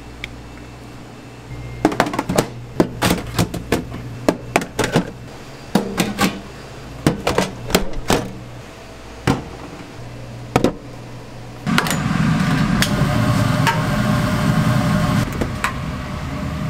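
Plastic and stainless-steel food pans and lids clicking and knocking as they are handled during kitchen prep, in many irregular sharp taps. About two-thirds of the way through, a steady rushing kitchen noise sets in and carries on.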